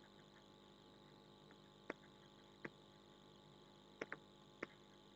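Near silence: faint room hum with about five faint clicks spread through the middle, two of them close together, from the input device used to handwrite on a digital whiteboard.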